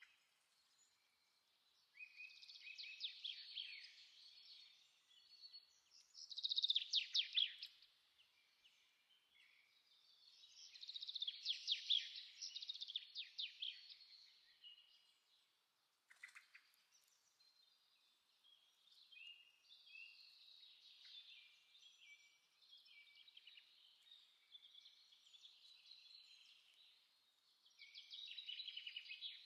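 Faint bird song: bursts of fast, high trills, loudest about 7 and 12 seconds in, with short scattered chirps between them.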